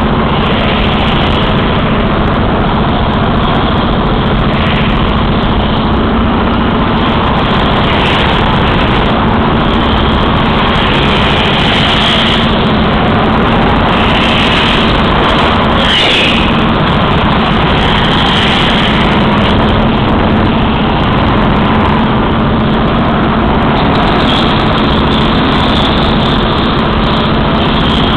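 Go-kart engine running steadily as the kart laps the track, heard loud and close from on board, with a few brief higher squeals along the way.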